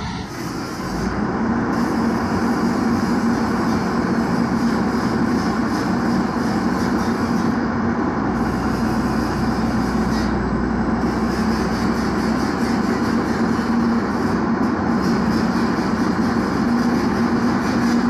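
Tracked excavator's diesel engine running steadily, with an even low hum and no change in speed.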